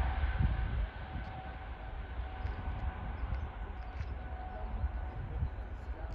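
Airbus A320 jet engines at departure thrust: a low rumble with a steady high whine, dropping in level about a second in as the aircraft moves away.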